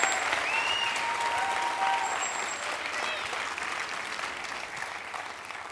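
Audience applauding, dying away gradually.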